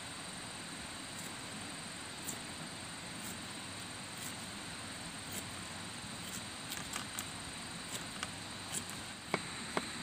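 Kitchen knife slicing ginger on a wooden stump chopping block: short sharp taps of the blade on the wood, about one a second at first and quicker in the second half, over a steady background hiss.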